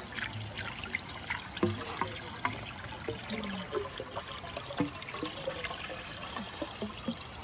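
Rainwater runoff trickling into a muddy overflow catchment, with many scattered drips and small plops on the water's surface.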